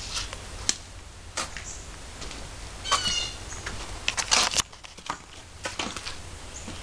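Handling noise from a handheld camera being carried: scattered clicks and rustles over a steady low hum, with a dense cluster of clicks just after four seconds.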